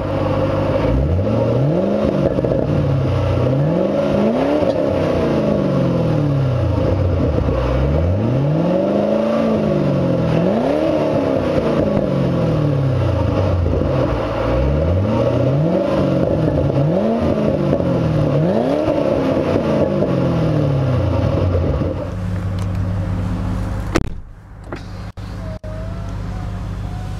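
2008 Ford Mustang GT California Special's 4.6-litre V8 idling and being free-revved through its stock dual exhaust, heard from behind the car: about eight blips of the throttle, each rising and dropping back to idle. Near the end it settles to a steady idle, then is heard more quietly from inside the cabin, with a few clicks.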